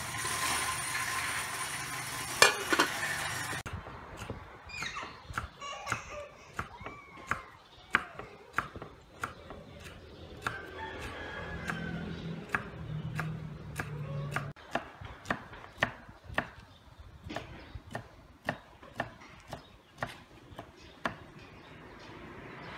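A kitchen knife chopping green onions on a round wooden chopping board, with sharp, even chops about twice a second. Before the chopping starts, a few seconds of louder steady rushing noise with one sharp knock.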